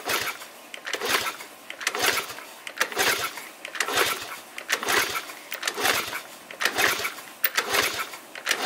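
Small Honda four-stroke single being kicked over again and again for a compression test, with a compression gauge in place of the spark plug and the throttle held open. There is about one kickstart stroke a second, each a short burst of cranking noise.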